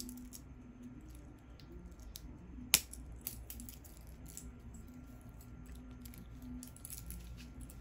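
Metal wristwatch and its bracelet being handled: a string of small metallic clicks and light rattles, with one sharp click a little under three seconds in.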